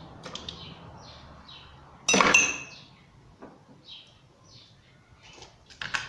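A metal spoon knocks against the plastic jar of a blender, a sudden clink with a short ring about two seconds in, as margarine is knocked off the spoon into the jar. A few lighter clicks follow near the end.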